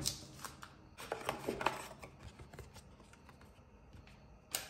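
Cardboard phone box being handled: crisp rustles and light taps in the first two seconds as the paper-card tray is lifted out, then a single sharp tap near the end.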